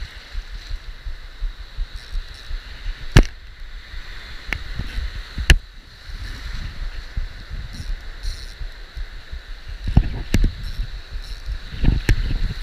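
Small waves breaking and washing in shallow surf, heard close to the water's surface with a steady low rumble. Several sharp clicks or knocks stand out, two about three and five seconds in and more near the end.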